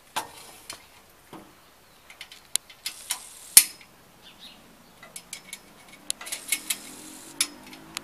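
Metal clinks and knocks from a satellite-dish mast being fitted into its wall bracket and its bolts handled: sharp, irregular clicks, the loudest about three and a half seconds in, with a quick cluster of clinks in the second half.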